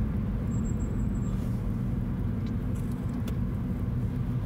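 Steady low road and engine rumble of a moving car, heard from inside its cabin.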